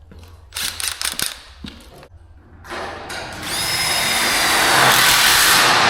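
A few clicks and knocks, then a cordless power driver runs for about three seconds with a slowly rising whine, backing the screws out of a garage door strut.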